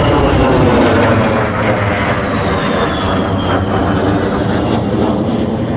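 Military fighter jet flying by, a loud, steady jet roar with a thin high whine that slowly falls in pitch.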